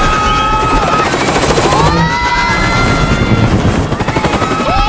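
Military helicopter's rotor chopping fast and loud, with high held notes over it.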